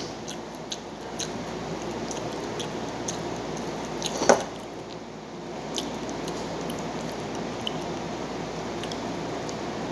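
A person eating by hand and chewing, with small clicks and ticks of fingers and food on a plate over steady background noise. One sharp knock, the loudest sound, comes about four seconds in.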